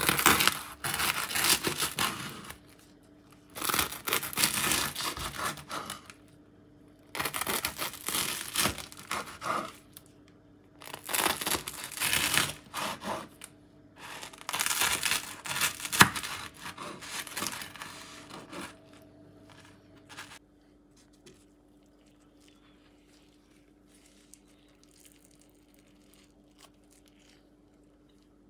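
A knife sawing through the crisp crust of a baked, cheese-topped ciabatta on a wooden cutting board, in five bouts of cutting of two to four seconds each. After about twenty seconds only faint sounds remain.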